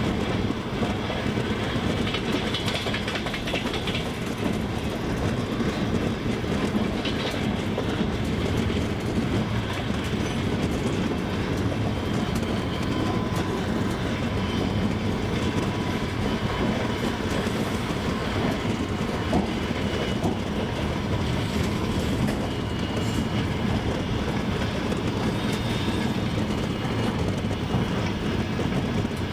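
Double-decker passenger train running at steady speed, its wheels clattering over the rail joints over a continuous rumble.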